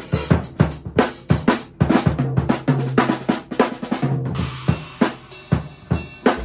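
Drum kit being played in a steady beat, with kick drum, snare and cymbal hits about three times a second.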